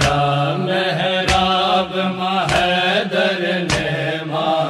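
A noha (devotional lament) chanted by a solo voice in a drawn-out, melismatic line over a steady low drone, with a single sharp beat struck about every second and a quarter.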